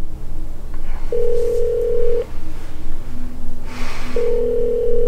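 Phone ringback tone heard while a call is placed and not yet answered: two long, steady beeps of one low tone, each about a second long and about three seconds apart, over a low steady rumble.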